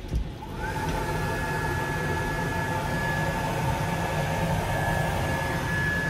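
Electric hand dryer in a train washroom switching on at the press of its button: the motor spins up with a short rising whine, then blows steadily with a held whine.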